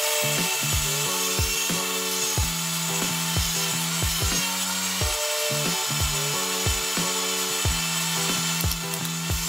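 Stainless-steel electric mini grain mill running at full speed, grinding washed broken basmati rice into flour: a steady, even whirring hiss. Background music with a regular beat plays along.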